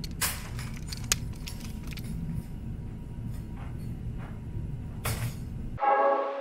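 Metal clinking and rattling as photo lighting gear is handled, with a sharp click about a second in and a longer rattle about five seconds in, over a steady low room hum. Near the end the hum cuts off and music with brass chords starts abruptly.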